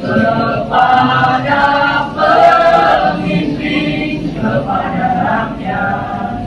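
Mixed school choir of boys and girls singing, held notes in short phrases that break every second or two.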